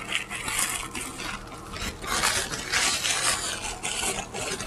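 A person chewing pizza with irregular mouth smacking.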